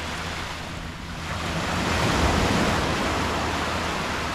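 Ocean surf washing onto a sandy beach: a wave swells about a second in, is loudest around two seconds, then slowly eases as it runs out.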